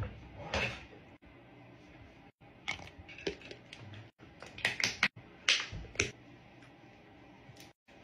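Scattered sharp clicks and taps of small makeup containers being handled, opened and set down, bunched together about three to six seconds in.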